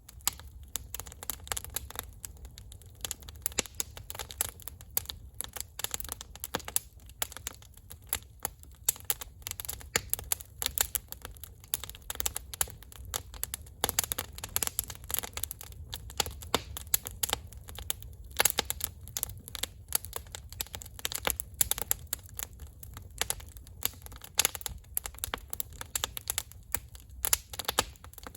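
Wood campfire crackling: dense, irregular pops and snaps over a steady low rumble.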